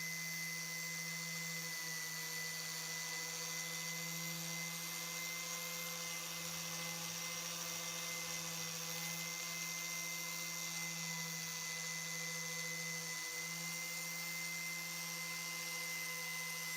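A small electric power tool motor running steadily at constant speed: an even hum with a high hiss.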